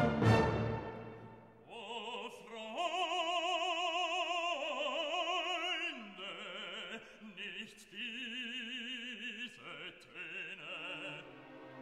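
Background classical music: a loud chord fades out at the start, then an operatic voice sings long held notes with wide vibrato over a soft accompaniment.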